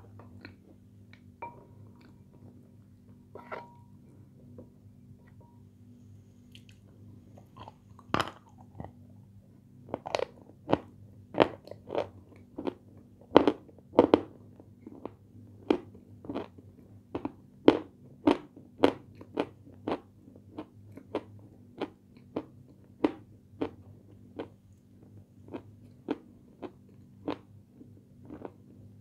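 Close-up chewing of crunchy white Turkestan sweets: a few soft mouth clicks at first, then from about eight seconds in, sharp crunches about twice a second.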